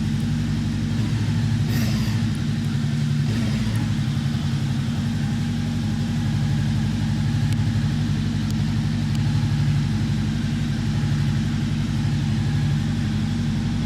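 Voge CU525's parallel-twin engine idling steadily.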